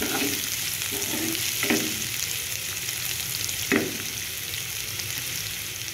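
Sliced onions and green chillies sizzling steadily in hot oil in a nonstick kadai as they sauté towards golden brown, with a spatula stirring them and scraping the pan a few times.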